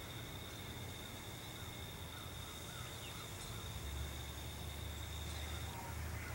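Faint outdoor ambience: a steady high-pitched insect drone that cuts off about two-thirds of the way through, light chirps, and a low rumble that grows in the second half. The siren itself is silent.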